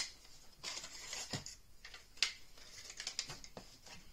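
Handling noise of a hand rummaging in a foam-lined hard case and pulling out a flexible turntable cover sheet: a scraping rustle with sharp clicks at the start, about two seconds in, and a few lighter ones shortly after.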